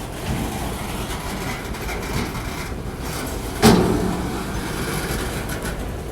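Freight train cars rolling by on the rails with a steady rumble, and one loud sudden clank a little past halfway.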